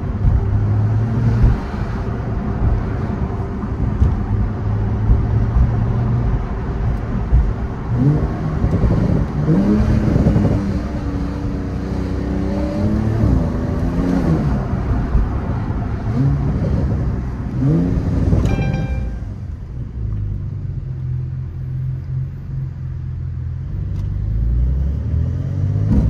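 Porsche 911 flat-six engine and road noise heard inside the cabin while driving, the engine pitch rising and falling several times as the car accelerates and shifts through gears, then settling into a lower, quieter steady hum about two-thirds of the way through.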